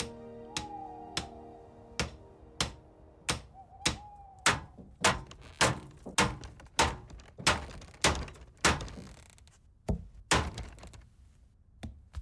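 A hammer knocking on wood in a steady series of about twenty blows, roughly one every half second, as a small wooden rowing boat is built.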